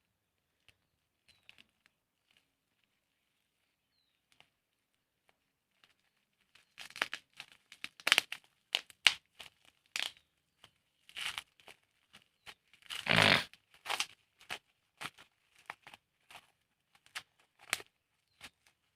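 Packaging being crinkled and torn by hand in irregular crackling bursts that begin about a third of the way in, the loudest about two-thirds of the way through; before that only a few faint clicks.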